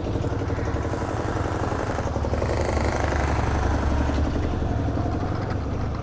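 Motorcycle engine running steadily, a little louder for a couple of seconds in the middle.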